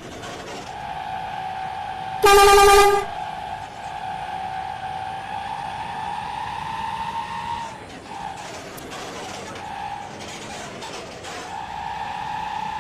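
One short, loud blast of a bus's telolet air horn about two seconds in, over a steady high whine that drifts slightly upward in pitch and drops out for a few seconds before coming back near the end.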